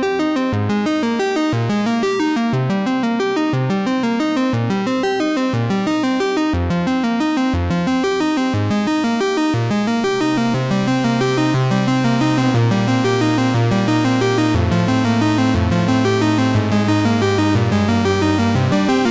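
Background music: an electronic keyboard tune with a steady beat, joined by a sustained bass line about halfway through.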